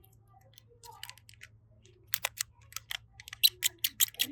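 Slime being worked by hand, giving off sharp clicking pops: a few scattered ones at first, then a quick run of them from about two seconds in, densest near the end.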